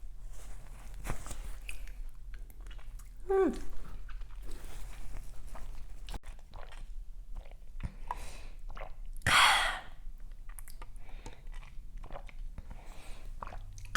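Close-miked chewing of a flaky-pastry meat pie: small wet clicks and light crunches, with a hummed "mm" about three seconds in and a short loud breath about nine seconds in.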